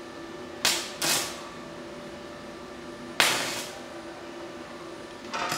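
Stick-welding arc from a Daesung MIG-120SE inverter welder in MMA mode, set to 100 amps with a 2.6 mm electrode, struck in four short bursts of arc noise with spatter, the third the loudest. A faint steady hum runs underneath.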